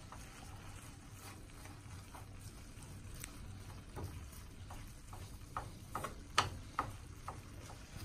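Plastic spatula stirring and scraping kale in a nonstick frying pan: irregular light clicks and taps against the pan, a few louder ones in the second half, over a faint sizzle.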